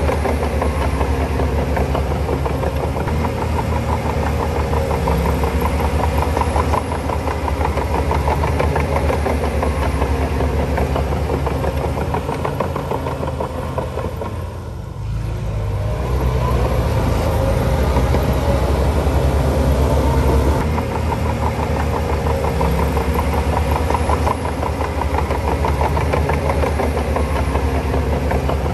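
Heavy diesel engine of earthmoving machinery running steadily, with a low pulsing engine note. It eases off briefly about halfway through, then picks up again.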